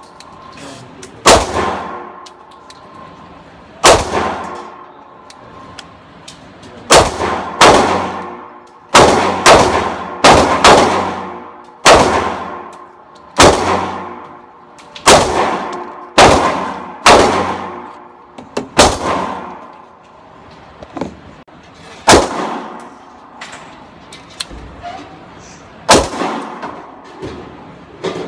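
Kimber 1911-style pistol firing a long string of shots, about eighteen at uneven intervals, sometimes two in quick succession, each crack ringing on in the reverberant indoor range.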